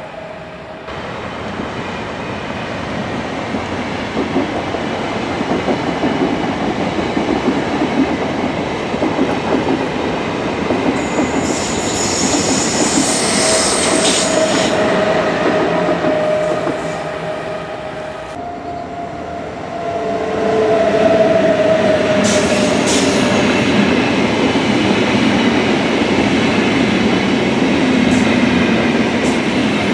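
Recorded sound of a full-size train running on the rails, a continuous rumble. High-pitched wheel squeal rises about a third of the way in and again briefly about two-thirds in. The sound grows louder a little past the middle.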